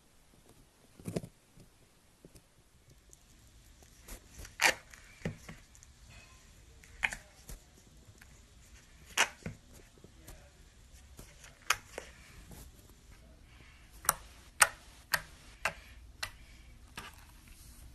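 Slime being squeezed and poked by hand, giving irregular sharp clicks and pops that come closer together in the last few seconds.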